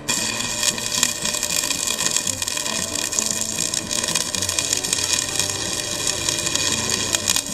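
Stick-welding arc on a 1/16-inch 6013 rod, struck suddenly at the start and then burning steadily: a loud, dense crackling hiss.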